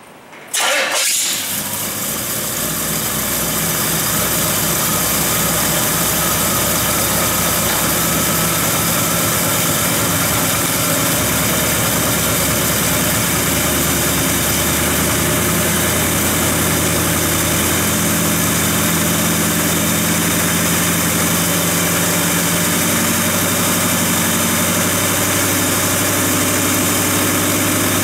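A C3 Corvette's V8 engine starts up about half a second in and then idles steadily.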